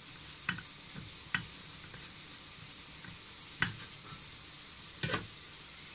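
Crab sticks being grated by hand on a metal box grater, heard as four short scrapes and knocks a second or more apart. Under them runs a steady sizzle of food frying in a skillet.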